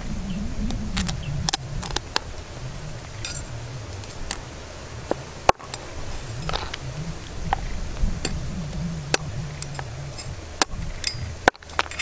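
A cleaver chopping raw blue crab on a wooden chopping board: irregular sharp knocks and cracks as the blade cuts through shell and strikes the wood.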